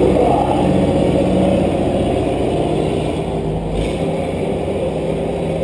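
A car engine running steadily, heard from inside a roll-caged car.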